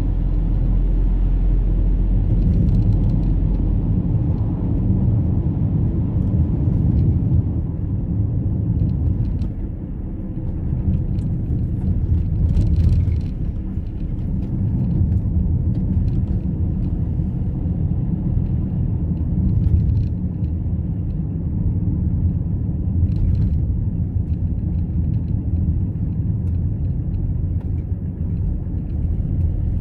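A car driving at a steady pace: continuous engine and road noise with no change in speed.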